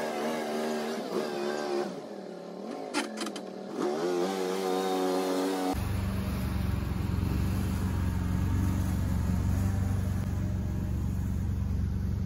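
Honda 690 V-twin engine in an Argo Conquest eight-wheeled ATV running as the machine is driven across grass, its note rising and falling with the throttle. About six seconds in the sound changes suddenly to a steady low rumble with hiss.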